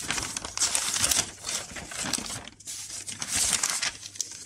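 A large folded sheet of thin old paper being unfolded and smoothed out by hand: rustling and crinkling in a string of crackly bursts.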